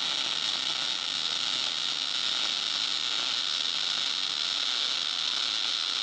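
MIG welding arc from a Lincoln 210 MP crackling steadily as a fillet bead is run along a steel T-joint.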